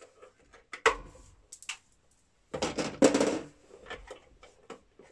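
Hand tools and electrical wire being handled while a wire connection is redone: scattered clicks and light metallic knocks, a sharp knock about a second in, and a louder scraping rustle around three seconds in.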